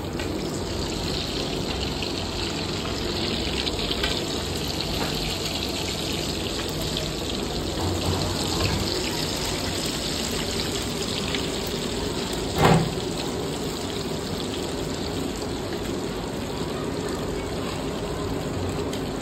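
Egg pakoras deep-frying in a wide pan of hot oil, the oil bubbling with a steady sizzle. A single sharp knock about two-thirds of the way through.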